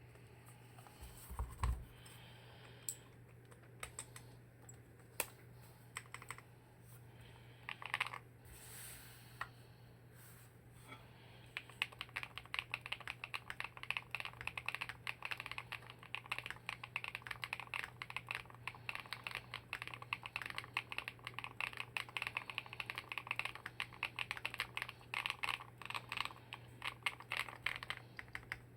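Typing on an Alice-layout mechanical keyboard in a CNC aluminium case with MMD Princess Ultra switches: a few separate keystrokes at first, then about a third of the way in, continuous fast typing. A faint steady low hum runs underneath.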